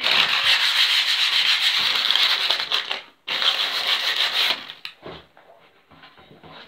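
Loud rubbing and scraping right against the recording phone's microphone, in two stretches broken by a short gap about three seconds in, then a few softer scuffs.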